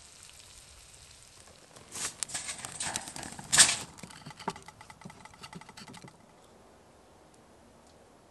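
Wood fire crackling and snapping in a perforated metal fire bowl: a run of sharp clicks and pops, densest about two to four seconds in with one louder burst, thinning to fine crackling that stops about six seconds in.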